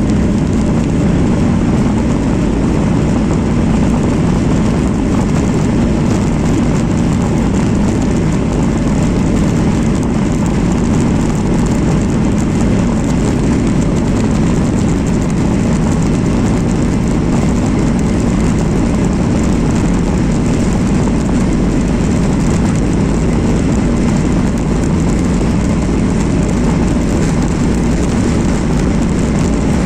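Steady cabin noise inside a jet airliner: a constant deep rush of engines and airflow, unchanging throughout.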